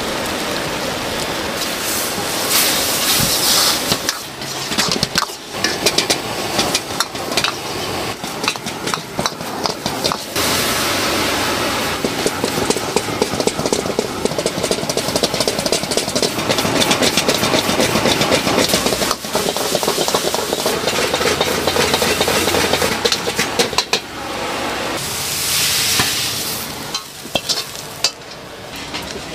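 Minced pork stir-frying in a wok: a steady sizzle with a steel ladle scraping and clanking against the wok many times. The sizzle swells into a louder hiss a few times.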